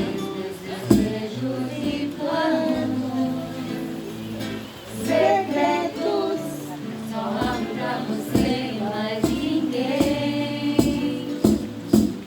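A woman singing a song, accompanied by a strummed acoustic string instrument.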